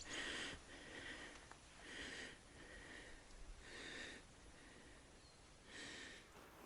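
Faint breathing through a snorkel: short hissing breaths about once a second, with a longer pause before the last one.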